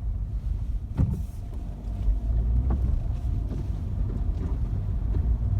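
A car driving on a snow-covered street: a steady low rumble of engine and tyres, with a sharp knock about a second in and a lighter one near the three-second mark.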